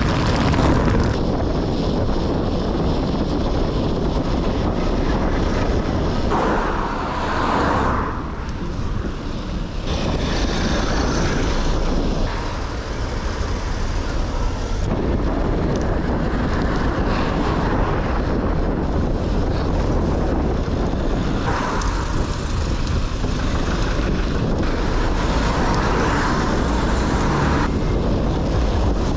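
Steady low wind rumble on a GoPro microphone whose furniture-pad wind covers are badly fitted, from riding a road bike at about 20 km/h, mixed with car and truck traffic passing close by; the traffic noise swells and fades every few seconds.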